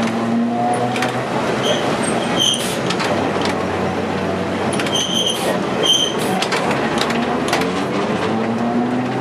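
Vintage wooden tram running along street track, heard from the driver's cab: a steady electric-motor hum with wheels clattering and clicking over the rails, and a few brief high squeaks. The motor hum rises in pitch near the end as the tram picks up speed.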